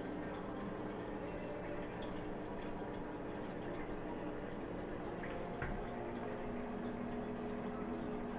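Turtle aquarium's water filter running: a steady trickle of water with a low pump hum, and one short knock about five and a half seconds in.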